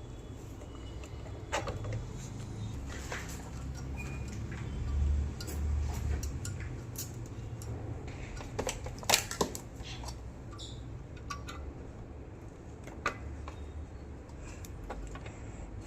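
Scattered light clicks and taps of small parts and tools being handled, the sharpest about nine seconds in, over a low rumble that swells briefly about five seconds in.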